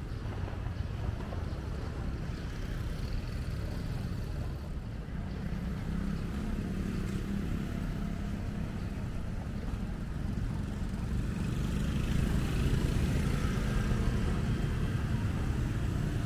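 Street traffic: motor scooters and cars passing as a steady, noisy rumble that gets louder in the last few seconds.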